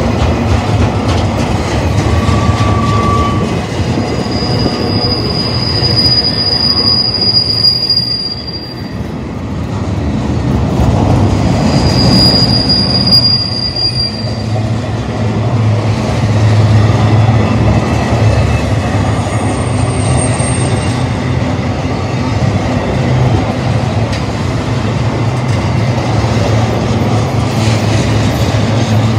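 Intermodal freight train of flatcars loaded with highway trailers rolling past close by, its steel wheels rumbling and clacking over the rail. High-pitched wheel squeals ring out for a few seconds at a time: from about five to nine seconds in, again from about twelve to fourteen seconds, and briefly near twenty seconds.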